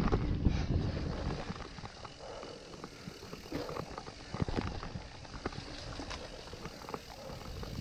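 Mountain bike descending a dirt trail: low wind rumble on the microphone, strongest in the first second or so, with tyre noise and scattered rattles and knocks from the bike over the rough ground.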